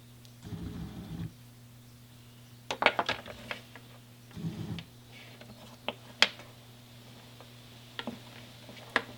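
Sharp clicks and light taps of small parts of a motorcycle throttle-cable assembly being handled and fitted by hand: a quick cluster about three seconds in, then single clicks a few seconds apart. Under them runs a steady low hum, with two short low rumbles near the start and middle.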